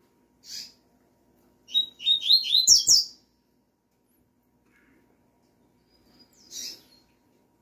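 Double-collared seedeater (coleiro) calling and singing: a short high call, then about two seconds in a loud, quick song phrase of repeated falling whistled notes ending in a rising sweep, and another short call near the end. Two knocks come near the end of the song phrase.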